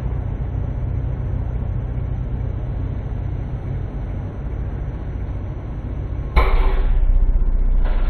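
Microwave oven running with a steady low hum while a candle burns inside. About six seconds in, a much louder harsh buzzing starts suddenly as the flame flares up and fills the cavity with bright light.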